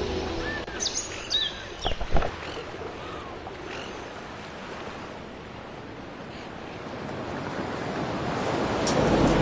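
A steady rushing hiss like surf or water noise, quiet at first and swelling toward the end. Early on, the tail of background music gives way to a few short chirps and clicks.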